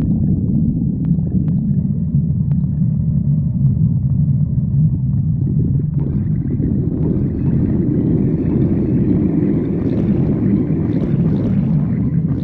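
A woman's stomach growling in one long, unbroken low rumble that takes on a higher, fuller sound about halfway through.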